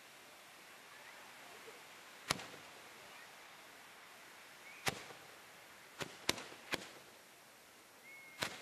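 Hand-held tezutsu bamboo-tube fireworks spraying sparks with a steady hiss, broken by six sharp bangs: one a little over two seconds in, one near the middle, three close together after six seconds and one near the end. The bangs are typical of the tubes' ends (hane) blowing out as each firework finishes.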